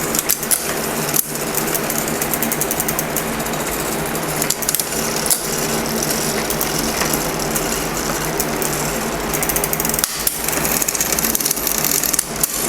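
Kid's bicycle drivetrain running as the pedals are turned by hand: chain rattling rapidly and steadily over the chainrings, cogs and derailleurs while the front shifting is tested after a cable adjustment, with the front derailleur cable a hair tight.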